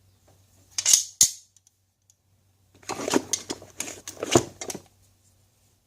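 Metal hand tools clicking and clattering as they are handled in and out of a tool bag: two sharp clicks about a second in, then a run of rattling knocks a couple of seconds later.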